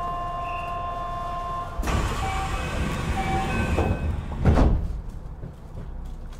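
A steady electronic tone stops about a second and a half in. Then the Kintetsu 5200 series train's sliding passenger doors close, with a rush of noise and a heavy thud about four and a half seconds in.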